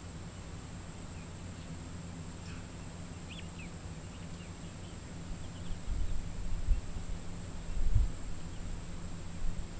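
Steady high-pitched drone of insects, with a few faint short bird chirps near the middle. From about six seconds in, low rumbling buffets of wind on the microphone.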